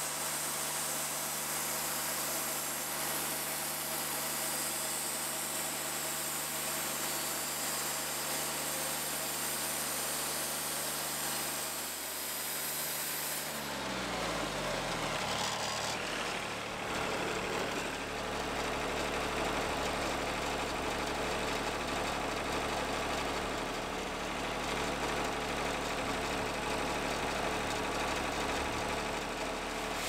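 Portable band sawmill running, the engine drone steady under the high hiss of the band blade cutting through a log. About 14 seconds in the hiss drops away with a brief falling tone, and a lower, rougher engine sound carries on.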